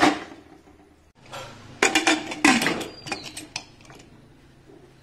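Pressure cooker lid clanking against the metal pot as it is put on and closed: a knock at the start, then a cluster of loud clanks about two seconds in that trail off into light clicks.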